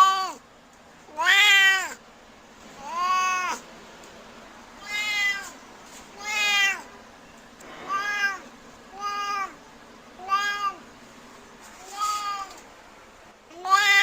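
Domestic cat meowing over and over, about nine separate meows, each rising then falling in pitch, with a short pause between them.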